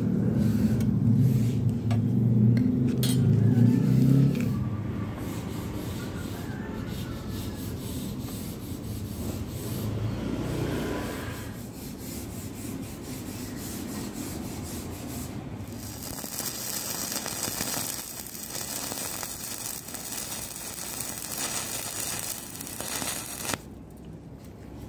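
Marker and steel rule scraping over a thin steel square tube, with a low rumble in the first few seconds. About fifteen seconds in, a stick-welding arc starts crackling and hissing steadily for about eight seconds, then cuts off shortly before the end.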